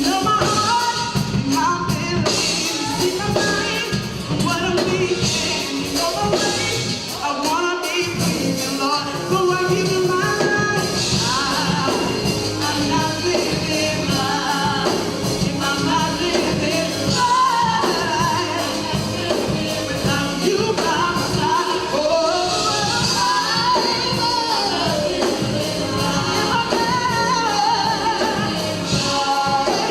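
Gospel praise-and-worship song: singing over a band with a steady beat.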